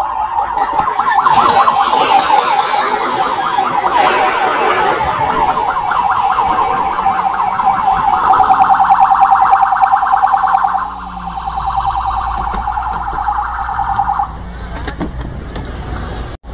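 Police siren wailing in a fast warble, cutting off about fourteen seconds in. A brief rush of noise comes around two to four seconds in.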